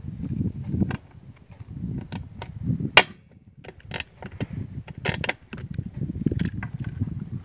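Circlip pliers working a steel retaining ring off a swivel bearing, giving a run of metallic clicks and scrapes with one sharp snap about three seconds in and a quick pair of snaps about five seconds in. A low rumble runs underneath.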